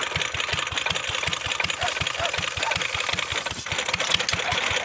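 Stationary engine running steadily, driving a fodder-chopping machine through a flat belt and pulley, with a regular low thud about seven times a second under a clattering mechanical noise.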